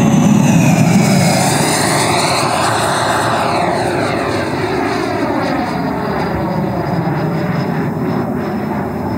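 JETFAN-120 PRO electric ducted fan of a large model jet, driven by a HET 800-73 motor, running at high power in a fast pass: a loud rushing whine with sweeping tones. It is loudest about a second in, then fades slowly as the jet climbs away.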